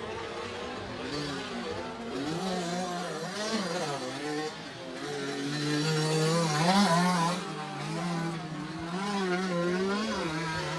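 Motocross bike engines racing, their pitch rising and falling as the riders work the throttle.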